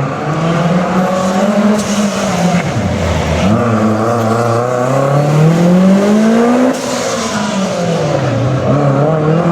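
Rally car engine revving hard through a drift, its pitch rising and falling as the throttle is worked: the revs dip about three seconds in, climb steadily for a few seconds, then drop sharply and build again near the end.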